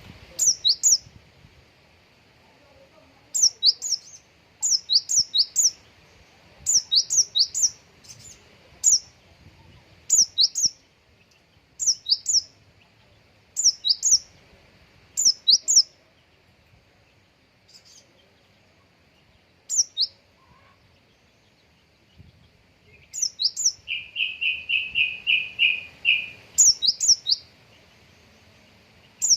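Konin songbird singing: groups of two or three quick, rising, high-pitched whistles, repeated every second or two with short pauses. Late on comes a fast run of about eight lower notes, the 'isian' song material this bird is kept to deliver, here taken from the Java sparrow.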